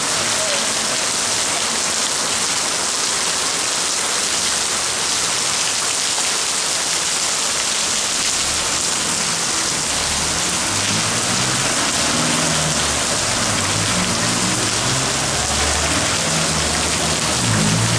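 Heavy rain pouring down steadily, a dense hiss of downpour on the street and roofs. A low, uneven rumble comes in under it about halfway through.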